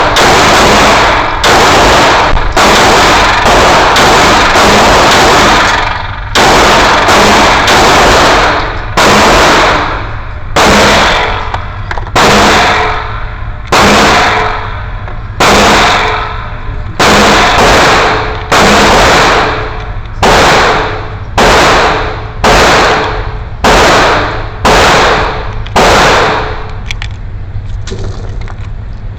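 9mm Glock 19 pistol firing shot after shot, packed closely at first, then at a steady pace of about one shot a second, stopping near the end. Each report is loud and rings out briefly.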